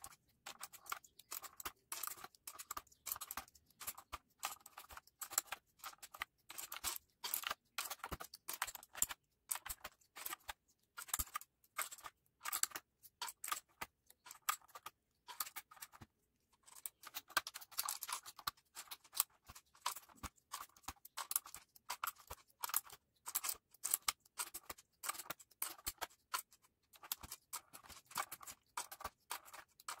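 Mechanical keyboard clicking: plastic keycaps and switches on a Redgear Shadow Blade clacking in many quick, irregular strokes, with a short pause about halfway.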